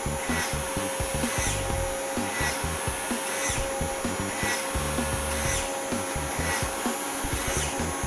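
Small brushed DC hobby motor spinning a plastic propeller fan, a steady rasping whir with a short chirp recurring about once a second.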